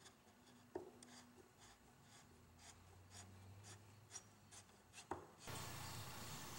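Faint, quick scratching strokes of a flat screwdriver tip worked into a joint of a wooden table frame, a few strokes a second, with a sharp click near the start and another near the end. In the last second a louder steady hiss takes over.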